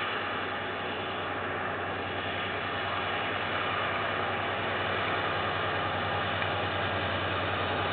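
KiwiRail freight train's wagons rolling steadily past: an even rushing rail noise with a low steady hum underneath, heard through a security camera's microphone.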